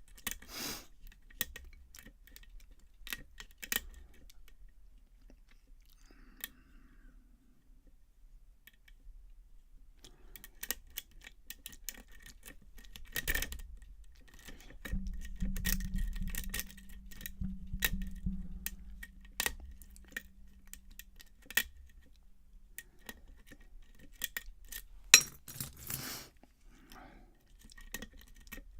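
A lock being picked: small scattered metallic clicks and taps of a pick and tension wrench working the pins of a repinned challenge lock, with one sharp loud click near the end. A low hum runs for several seconds in the middle.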